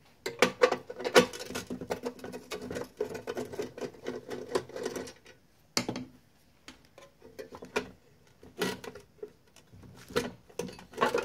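Metal clicking and rattling as the front panel of a sheet-metal RV service box is unscrewed and taken out: rapid, busy clicking for the first few seconds, then scattered single clinks.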